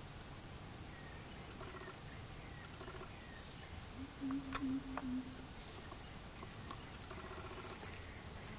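Steady high-pitched chirring of insects in the surrounding vegetation. About four seconds in, a brief low pitched sound lasting about a second, with a couple of sharp clicks, is the loudest thing heard.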